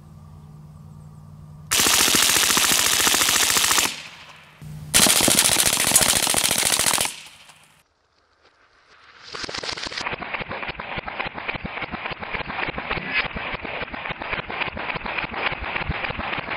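Two full-auto bursts from an integrally suppressed H&K MP5SD in 9mm, each about two seconds long, with a short pause between. From about nine seconds in comes a long, duller run of rapid shots with the treble cut away, gunfire slowed down under a slow-motion replay.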